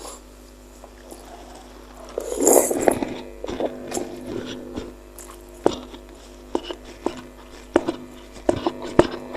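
Close-miked eating of spicy meatballs: a short, loud, noisy mouthful a couple of seconds in, then chewing with many irregular wet clicks.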